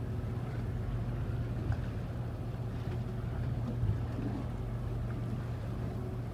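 Steady low drone of a boat's engine running, with some wind on the microphone.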